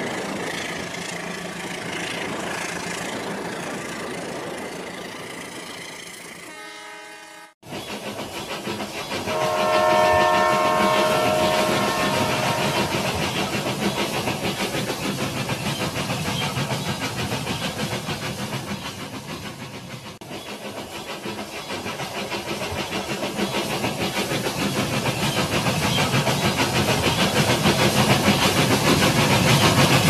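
Battery-powered toy trains running on plastic track, a steady whir and fast clicking of the motors and wheels. A toy train horn sounds for a few seconds after a brief dropout, and the running noise grows louder near the end as a train comes close.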